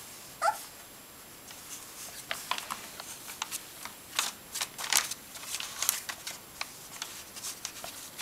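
Young Welsh Springer Spaniel puppies scrabbling about in a whelping box: irregular scratchy rustles and clicks of claws and paws on newspaper and fleece, busiest midway through, with one short high squeak about half a second in.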